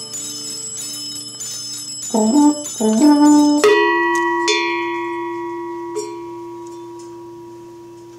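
Final bars of a folk-instrument Christmas carol arrangement: held notes, two short loud notes that slide up in pitch, then a last chord that rings out like a bell and slowly fades away.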